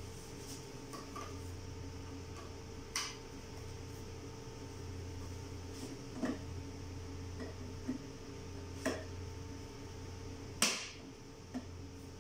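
Sharp plastic clicks and knocks from an expiratory valve being handled and fitted into a Mindray SV600 ventilator, which has to click into place. About five clicks are spread out over a steady low hum, the loudest near the end.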